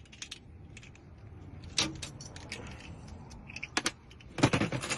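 Metallic clicks and key jangling from a car door lock cylinder and its key being worked on by hand, with scattered taps, one sharp click about two seconds in and a dense run of clicks near the end.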